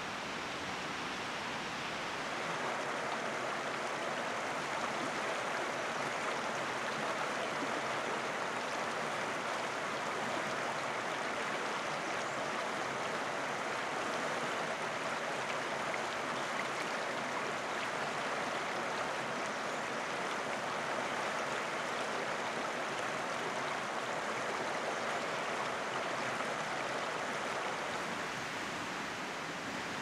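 River rapids rushing steadily, an even noise of fast-moving water.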